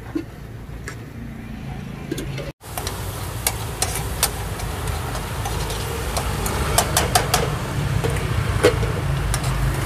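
Metal tongs and chopsticks clicking and clinking against a frying pan and wire strainer at a street-food frying cart, over a steady low engine hum of motorbike traffic.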